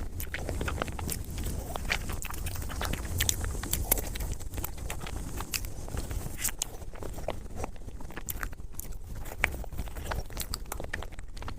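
Close-miked eating of soft chocolate mousse cake: wet chewing and many small, irregular lip-smacking and mouth clicks.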